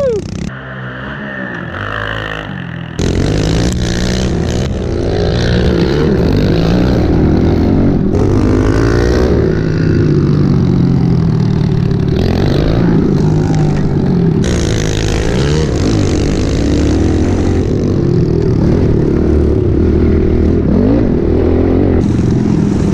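Pit bike engines running and revving while being ridden, pitch rising and falling with the throttle. The sound is quieter for the first few seconds, then much louder, with several abrupt changes where the footage is cut.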